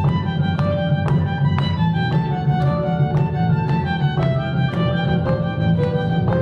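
Background music: an upbeat Celtic tune led by fiddle over a steady low drone, with a beat about twice a second.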